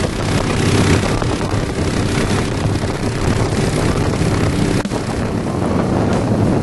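Motorcycle engines running at highway speed in a large group ride, a steady low drone mixed with wind buffeting the microphone. A short break about five seconds in.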